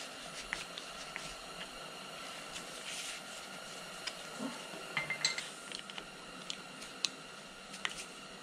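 Scattered light metallic clicks and scrapes of a screwdriver working at the gib adjustment screw in a Bridgeport milling machine's cast-iron saddle, with a few quicker clicks about five seconds in, over a steady faint hum.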